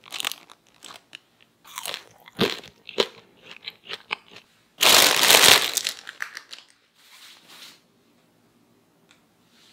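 Thin plastic bag crinkling and crackling as fried, seasoned potato balls are worked around inside it, with a loud burst of rustling about five seconds in that lasts about a second.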